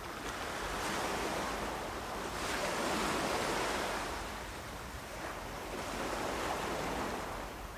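Ocean waves breaking on a shore, the surf swelling and easing in slow surges.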